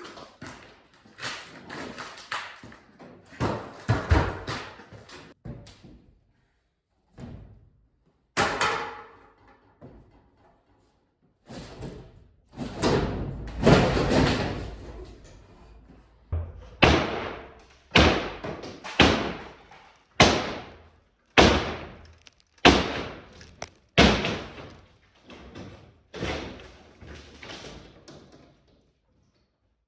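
Small sledgehammer, about 2 pounds, being swung hard against a divider wall: irregular heavy blows and longer crashing noises in the first half, then a steady run of blows about one a second.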